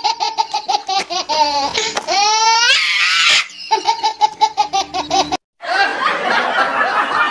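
Laughter in a quick, even run of "ha-ha" laughs, with a rising squealing whoop about two seconds in. It stops briefly after about five seconds and comes back as a denser, noisier burst of laughter.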